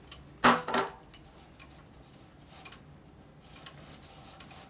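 Light metallic clicks and clinks of motorcycle control cables and their end fittings being worked by hand, with a louder short double clatter about half a second in.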